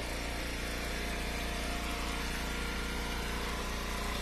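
Gas engine of an Eastonmade Ultra hydraulic log splitter running steadily.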